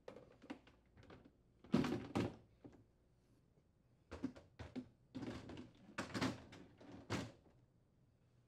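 Plastic freezer baskets being set back into a refrigerator freezer drawer: a series of hollow plastic knocks and clatters as they drop onto the rails and frame. The loudest knocks come about two seconds in, and more follow between about four and seven seconds.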